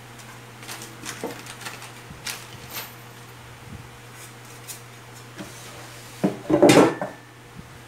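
A recessed speaker-box handle being picked up and handled, with scattered light clicks and taps, then a louder scraping knock near the end as it is pressed into the cutout in the wooden cabinet.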